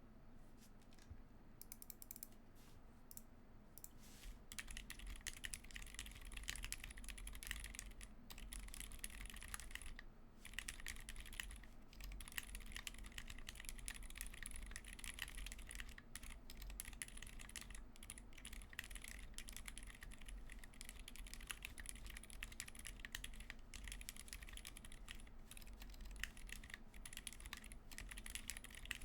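Typing on a Cannon Keys Bakeneko60 mechanical keyboard with Zeal Zilents silent tactile switches, an FR4 plate and PBT keycaps: a continuous run of keystroke clicks, sparse for the first few seconds and then rapid and steady.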